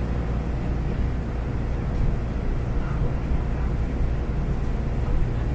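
Airport apron bus driving, a steady low rumble of its engine and tyres heard from inside the cabin.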